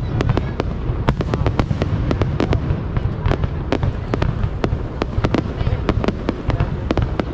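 Fireworks display in full barrage: rapid, irregular bangs several times a second over a continuous low rumble of bursting shells.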